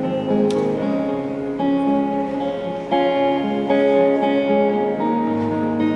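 Two guitars, at least one of them acoustic, playing the instrumental intro of a folk song without vocals. The notes are plucked and ring on, and the chord changes about every second.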